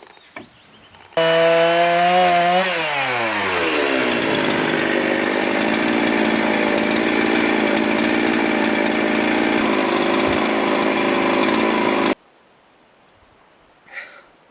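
Chainsaw running at high revs, then dropping in pitch as the chain bites into a log wall and cutting steadily for about eight seconds. It starts suddenly about a second in and stops abruptly near the end.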